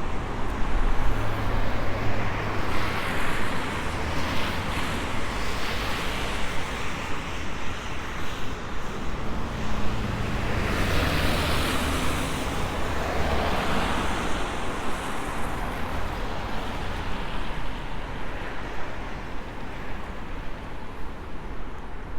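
Road traffic on a city street, several cars swelling up and fading away one after another over a steady background of traffic noise, with low wind rumble on the microphone.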